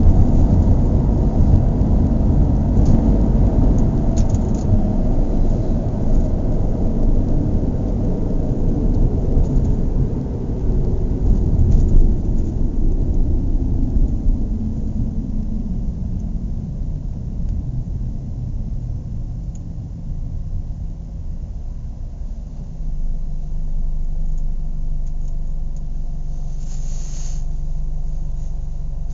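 Car engine running at raised revs, then the revs fall away over several seconds and it settles into a steady idle about two-thirds of the way through. A short hiss comes near the end.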